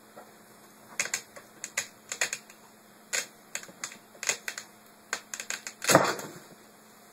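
A cat scratching and shifting about inside a fabric storage bin, a scatter of sharp crinkly clicks at irregular intervals. About six seconds in comes a louder, longer rustle as the cat drops down into the bin.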